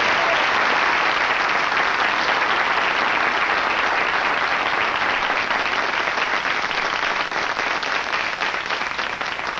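Studio audience applauding steadily, easing off a little near the end.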